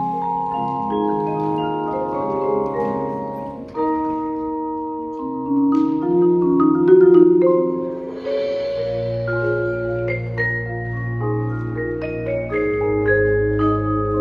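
Indoor percussion ensemble's marimbas and vibraphones playing slow, sustained chords, the notes ringing over one another. About eight seconds in there is a brief rushing swell, then a low steady bass note holds underneath the chords.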